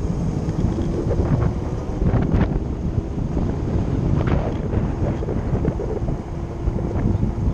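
Wind buffeting the microphone of a moving electric motorcycle, with a faint steady whine from its electric drive and a few light knocks from the ride.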